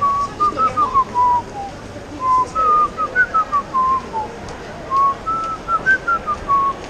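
A person whistling a tune, a run of short clear notes stepping up and down, with a few brief pauses.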